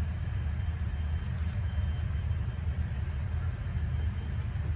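Steady low rumble with no break.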